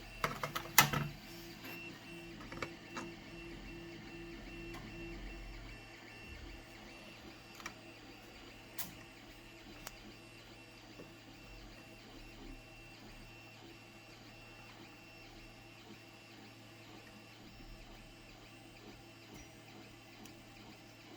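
Light clicks of small metal hand tools being handled, the sharpest about a second in, then faint scattered ticks as a Helicoil insertion tool winds a thread coil into an aluminium tab, over a steady low hum.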